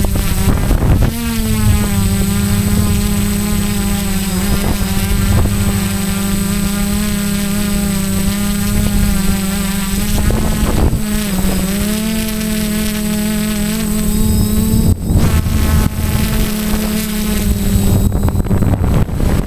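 Quadcopter's electric motors and propellers buzzing in a steady hover, heard from the camera on board, with wind rushing on the microphone. The pitch dips briefly and recovers about halfway through, and the buzz gives way to rushing noise near the end.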